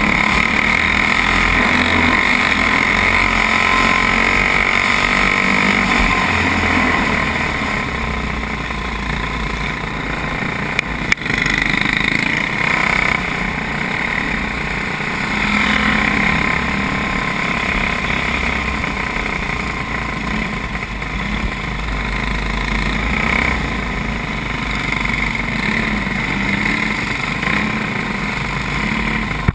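Racing kart engine running at speed, heard from the kart itself, its pitch rising and falling with the throttle. A brief click about eleven seconds in.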